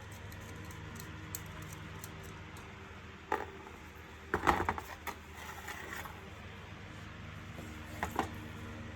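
Small hard parts and tools being handled and set down, giving short clicks and clatter: one click a little over three seconds in, a louder rattling cluster around four and a half seconds, and two clicks about eight seconds in, over a steady low hum.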